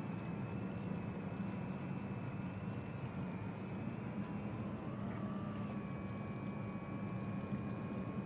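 Small motorboat's outboard engine running steadily as it passes, a continuous low hum, with a thin high whine above it that shifts slightly in pitch about five seconds in.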